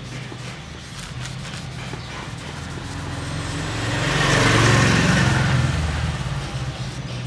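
A motor vehicle passes: a low engine hum grows louder to a peak about halfway through, then fades away.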